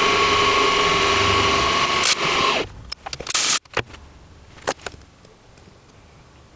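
Milling machine running steadily with a whine while cutting the flats of a ten-sided case-back wrench, then shutting off suddenly about two and a half seconds in. A few sharp clicks and knocks follow.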